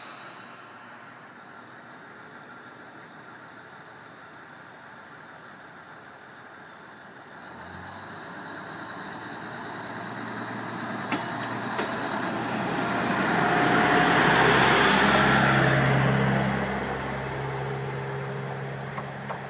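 JR KiHa 110 diesel railcar departing a station: the diesel engine idles, then revs up about a third of the way in as the train pulls away. It grows loudest as the car passes close by, with a few sharp clicks along the way, then fades as it draws off down the line.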